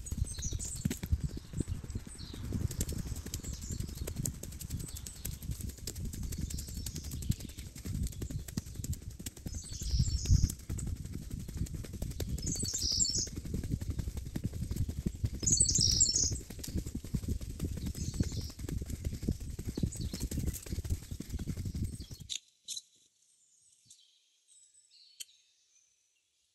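Wind buffeting and handling rumble on the microphone of a camera carried by a runner, with birds chirping now and then. About 22 seconds in the rumble stops, leaving only faint birdsong.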